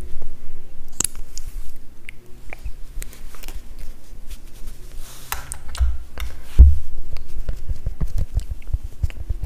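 Close-miked ASMR handling sounds: scattered sharp clicks and taps, with a strong soft thump partway through and a quick run of soft low thumps near the end.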